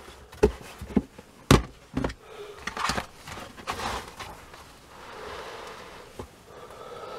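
Plastic sweet tubs being handled: a lid pressed on and the tub stacked on others, giving several sharp plastic clicks and knocks in the first two seconds, then rustling and scraping as the stack is shifted on the bench.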